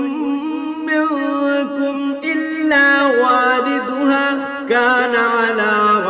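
A man's solo voice chanting Quran recitation in Arabic, melodic tajweed style, drawing out long held notes with ornamented turns.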